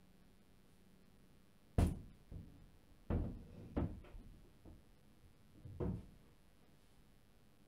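A handful of separate dull knocks and thumps spread over several seconds, the first and loudest about two seconds in.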